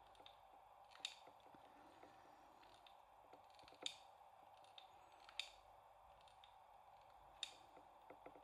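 Near silence with a faint steady room hum, broken by four soft clicks a second or more apart from a small hot glue gun being worked against a thin metal ring.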